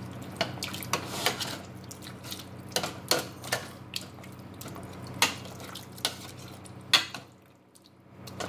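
Big metal spoon clinking and scraping against a stainless steel pot while mashing boiled red potatoes with milk. Irregular sharp clinks, the loudest about seven seconds in, then a brief lull near the end.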